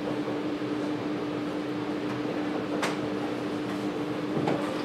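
Chalk tapping and scratching on a chalkboard while a dashed circle is drawn, with one sharp tap a little before the three-second mark. Underneath, a steady room hum holds one constant pitch over a hiss.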